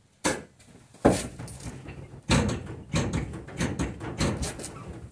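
Vehicle door and cab clunks with a run of knocks as the brake pedal of a 1995 Holden Rodeo is pumped, which sets the freshly adjusted rear drum brakes. There is a loud thud about a second in, another a little past two seconds, then a quicker string of smaller knocks.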